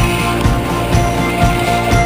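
Background rock music with a steady drum beat, about two beats a second.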